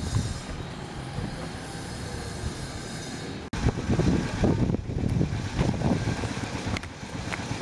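Low rumble and hiss of outdoor noise on a camera's built-in microphone. It cuts out for an instant about three and a half seconds in, then comes back louder and more uneven, with irregular low surges.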